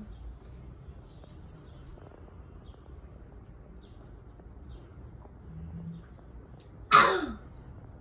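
Quiet room with faint, scattered bird chirps. About seven seconds in, a sudden loud short cry falls sharply in pitch.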